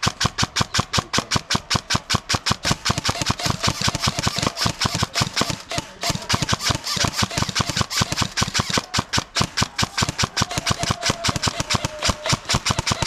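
Airsoft gun firing full-auto in long sustained bursts, a fast, even rattle of shots with a short break about six seconds in.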